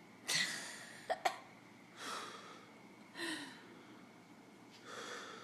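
A person's breathing: four short breathy puffs of air, a second or more apart, with two sharp clicks about a second in.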